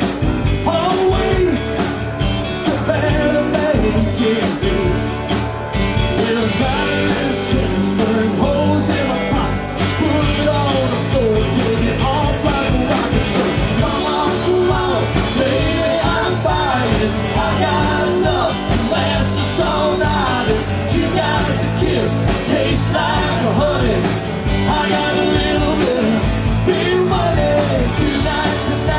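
Live rock band playing: a man singing over electric guitars, bass guitar and drums.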